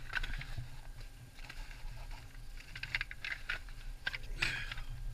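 Footsteps and scrambling on the rocky floor of a lava tube: irregular crunches and scrapes, a few a second in clusters, over a steady low hum.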